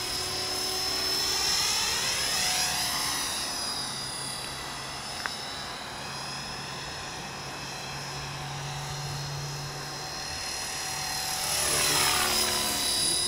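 Electric RC helicopter (eSky Belt CP on a B.A.D. flybarless frame) in flight: steady high whine of its brushless motor and belt-driven tail rotor, held at constant head speed by the governor. It grows louder as it passes close about a second and a half in and again near the end, with one small click in the middle.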